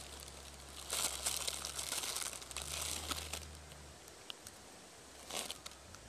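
Thin plastic packaging crinkling as it is handled, in a long stretch from about a second in to past three seconds and again briefly near the end.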